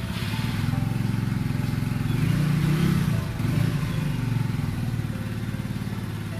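A small motorcycle engine running at idle, with a light rev about two seconds in before it settles back.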